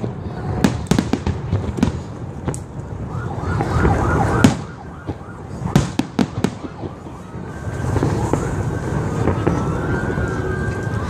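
Aerial fireworks shells bursting, with sharp bangs and crackling for the first six or seven seconds and the loudest bang about four and a half seconds in. Then the bursts stop, and long high tones rise and hold over a low steady rumble.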